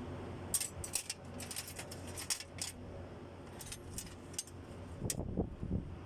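Metal tools and engine parts clinking and tapping as they are handled: a string of sharp, irregular clicks over a low steady hum.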